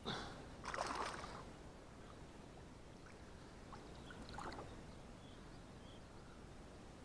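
Water splashing as a fishing lure drops onto the surface beside the boat, about a second in. A smaller splash follows around four and a half seconds in as the lure is worked near the surface.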